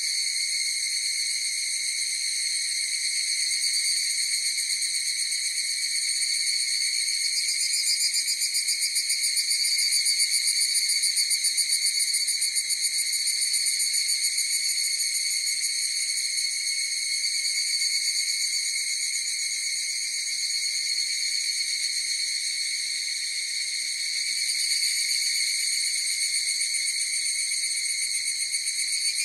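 Higurashi (evening cicadas) calling in chorus: a continuous high, rapidly pulsing trill that swells a little about a third of the way in and again near the end.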